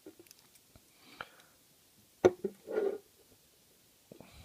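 Small metallic clicks and taps of lock picking tools against a brass padlock as the lock is reset after an overset pin, with one sharp, loud click about two seconds in.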